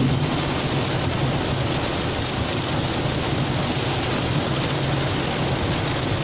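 Heavy rain falling steadily on a Toyota Innova's roof and windscreen, heard from inside the cabin, over a low, steady engine hum as the car idles at a red light.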